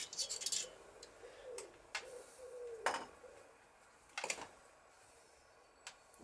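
Scattered small metal clicks and taps of hand tools working in a Yamaha XS650 cylinder head while the valve collets are being fitted: a quick flurry at the start, then single clicks every second or so.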